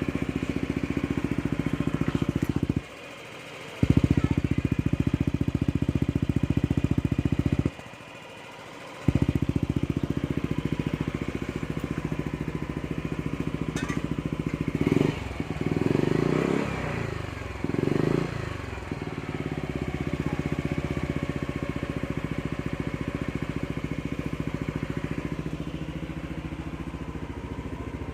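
Yamaha Aerox scooter's single-cylinder engine running through a newly fitted aftermarket exhaust pipe, idling steadily with two brief drop-outs in the first ten seconds. Between about fifteen and eighteen seconds in it is revved in a few quick blips, then settles back to a steady idle.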